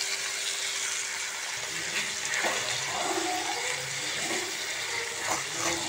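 Water poured from a steel cup into a hot pan of frying onion-tomato masala, sizzling steadily as it is stirred in with a wooden spatula.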